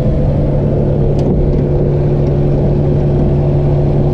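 1990 Honda Civic DX's 1.5-litre four-cylinder engine idling steadily with the hood open, a constant even hum.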